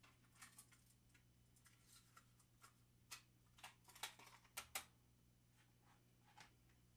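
Drumsticks tapping on the pads of an electronic drum kit, heard acoustically without the kit's drum sounds: faint, irregular clicks with a few sharper hits about four seconds in, over a steady low hum.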